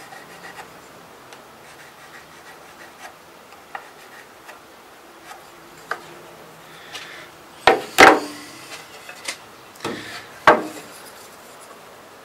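Pencil scratching faintly along a rimu rifle-stock blank as the outline of an old stock is traced onto it, then a few loud sharp wooden knocks and clatter about two-thirds of the way through.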